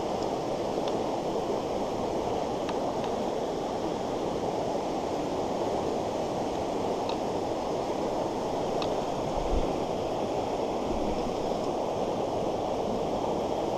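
Fast mountain stream rushing over rocks: a steady wash of running water, with a few faint ticks and a brief low bump about nine and a half seconds in.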